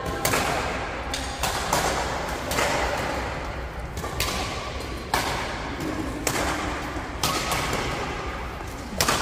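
Badminton racket strings striking a shuttlecock in a rally: about ten sharp smacks, roughly one a second, each ringing on in the echo of a large hall.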